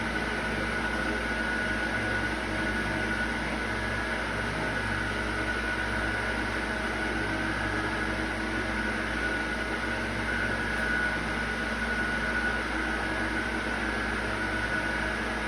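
A steady machine hum with a faint high whine held at one pitch.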